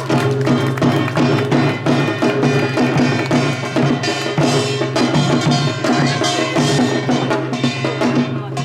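Samul nori percussion ensemble playing: kkwaenggwari small gong, jing large gong, janggu hourglass drum and buk barrel drum beating a fast, dense rhythm without pause.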